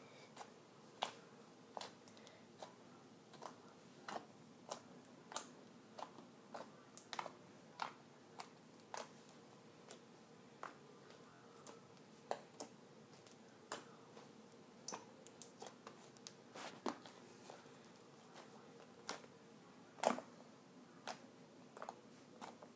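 Gray slime squeezed and kneaded by hand, giving irregular small clicks and pops, about two a second, with a louder one near the end.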